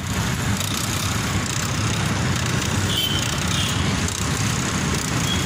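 Steady rushing roar of a hand-cranked forge blower driving air into a small charcoal fire where brass is being melted in a crucible.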